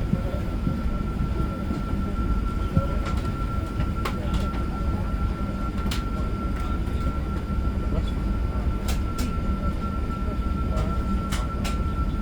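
Steady low rumble inside an Airbus A380's cabin, with a thin steady whine and scattered light clicks.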